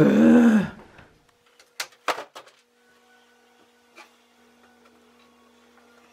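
A short voiced sound from a person, then a faint steady hum with a few light clicks and taps.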